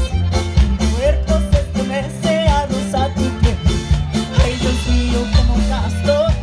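A live acoustic folk band playing a bouncy Latin-flavoured groove. Upright bass notes sit under rhythmic strumming from mandolin and a small guitar, with a wavering melody line on top.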